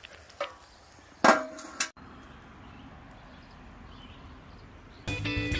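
Metal lid of a small portable charcoal grill set down on the grill with a ringing clang about a second in, followed by a lighter clank. Then faint steady outdoor background, and guitar music starts near the end.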